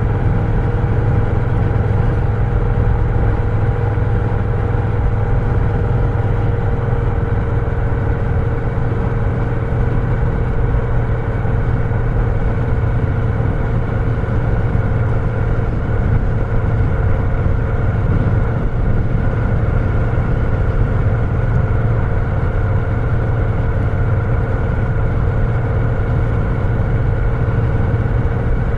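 Moto Guzzi V7's air-cooled transverse V-twin running steadily at an even road speed on a downhill ride, heard from the rider's seat, its pitch dipping slightly about six seconds in.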